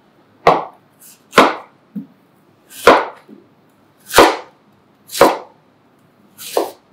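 Chef's knife cutting through peeled Granny Smith apples and striking the cutting board: six cuts spaced a second or so apart.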